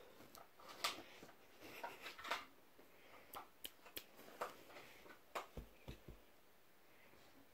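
Faint scattered clicks and rustles, with three soft low thumps a little past the middle, from a dog and a cat scuffling in play.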